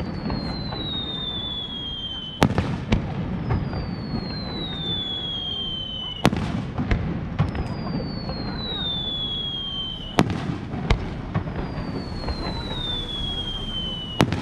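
Aerial firework shells fired one at a time. Each climbs with a whistle that falls slowly in pitch over about three seconds, then bursts with a sharp bang. Four bangs come about every four seconds.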